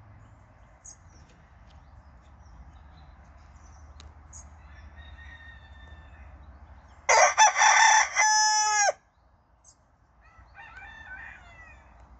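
Silver spangled Hamburg rooster crowing once, about seven seconds in: a crow of about two seconds that ends on a long held note, dropping off at the close. Faint clucking before and after.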